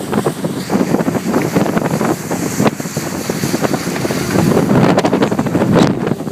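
Heavy wind buffeting on the microphone over the rush of water and the running Suzuki DF140 four-stroke outboard as a rigid inflatable boat runs at speed through choppy sea.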